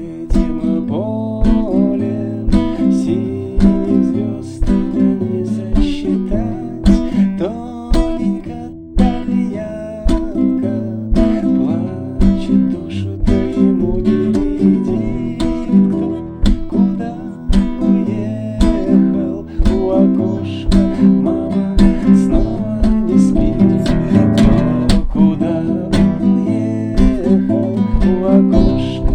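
Acoustic guitar strumming chords in a steady rhythm: an instrumental passage between sung verses.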